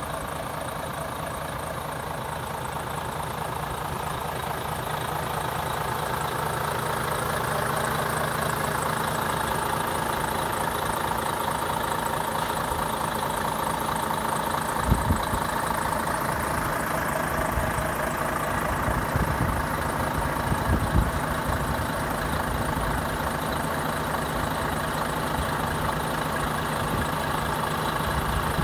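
Volvo FH500's 13-litre straight-six diesel idling steadily, growing louder over the first several seconds. A few dull low thumps come about halfway through.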